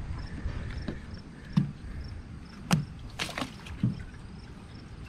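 About six scattered knocks and thumps on wood, each with a short low thud: the wooden dock or boat being bumped and stepped on.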